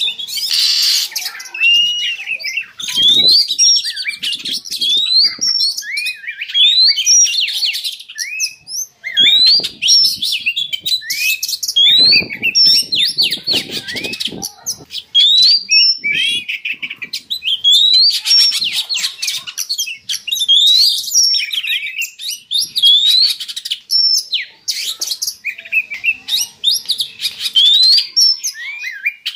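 Oriental magpie-robin (kacer) singing in breeding condition: a fast, varied, unbroken run of sharp rising whistled notes. Short rustling noises come in now and then, most around the middle.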